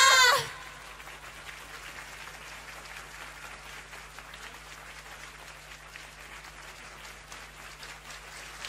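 A sung note ends about half a second in, and then an audience applauds steadily.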